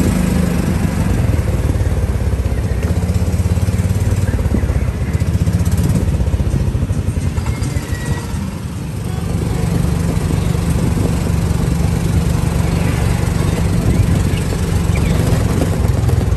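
Golf cart driving along a street: a steady low engine drone that dips briefly about halfway through.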